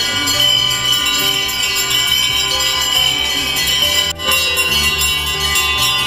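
Temple bells ringing nonstop during puja: a dense, steady metallic ringing, with a brief break about four seconds in.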